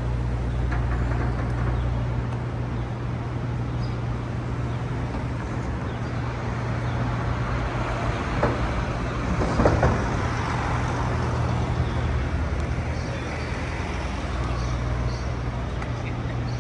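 Street traffic: a steady low engine hum over a wash of road noise, with a brief louder passing sound about halfway through.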